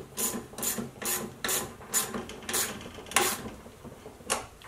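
Ratchet wrench clicking in repeated short strokes, about two a second, as the 7/16 bolt on the mower's self-propel drive linkage is tightened.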